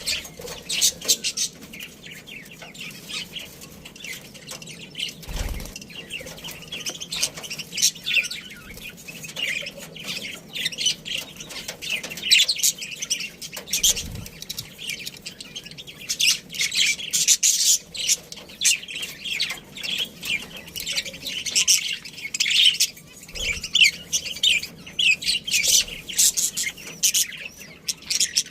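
A colony of budgerigars chirping and chattering constantly in many overlapping voices. There are a few dull thumps, about 5, 14 and 23 seconds in.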